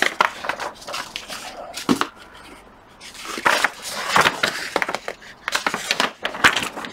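Large paper plan sheets rustling and crinkling as they are turned over by hand, in two spells with a short lull between.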